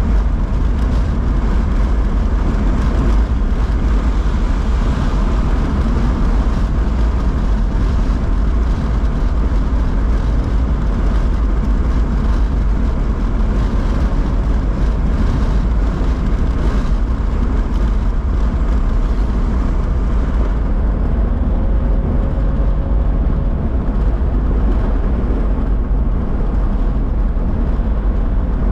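Steady low rumble of city street traffic, loud and unbroken.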